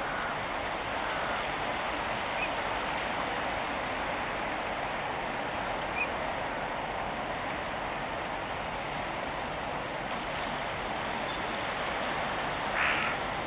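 Steady wash of moving water, an even rushing noise with no rhythm, with a short harsh bird call near the end.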